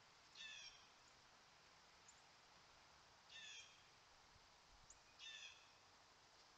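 A bird calling three times, each call short, about two to three seconds apart, with a couple of faint, very high chirps between calls.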